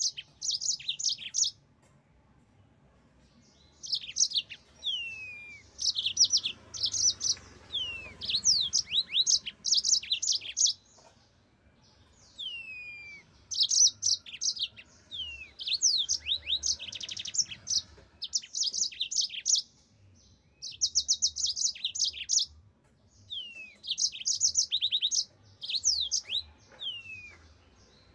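Yellow-fronted canary singing: high phrases of fast trills and quick downward-sliding whistles, repeated with short pauses between them.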